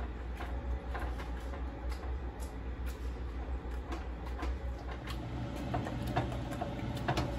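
Wire potato masher mashing cooked beans in a stainless steel pan, with irregular soft squelches and clicks as it presses against the pan bottom. A steady low hum underneath.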